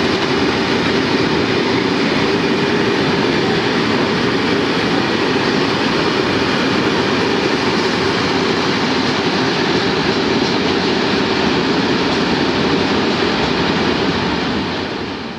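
Freight train rolling past at steady speed, its wheels running on the rails in a continuous loud rumble that fades out near the end.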